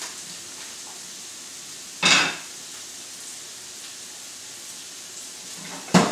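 Garlic and porcini frying in hot olive oil in a pan: a steady sizzle. Two short loud bursts of noise, about two seconds in and again at the end, come as chopped mushrooms are tipped into the pan from a bowl.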